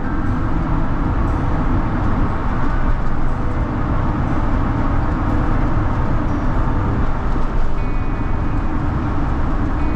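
Steady road and engine noise of a car travelling at freeway speed, heard from inside the cabin.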